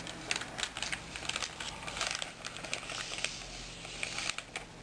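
Hands handling a replacement laptop LCD panel and its plastic packaging: a string of irregular light clicks and taps with plastic rustling as the panel is slid out.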